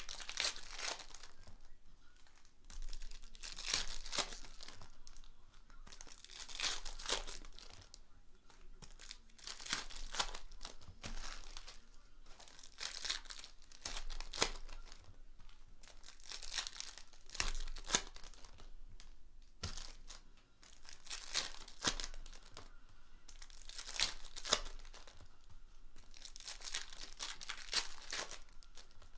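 Foil wrappers of Panini Prizm retail trading-card packs being torn open and crinkled, in rustling bursts every two to three seconds.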